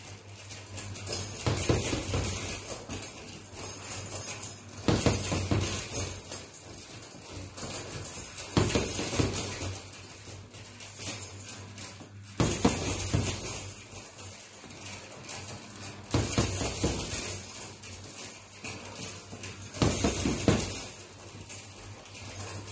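Gloved punches landing on a hanging heavy punching bag in quick combinations, a burst every few seconds, with the bag's metal chains jingling as it swings.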